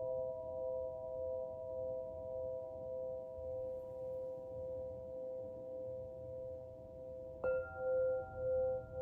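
Crystal lyre ringing with several sustained pure tones. About seven seconds in a new note is struck, adding a higher tone, and the sound then pulses in a slow wobble, about once a second.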